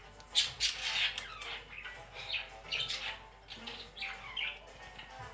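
Pet bird giving a run of short, rough, cough-like calls and chirps, the sharpest about half a second and a second in.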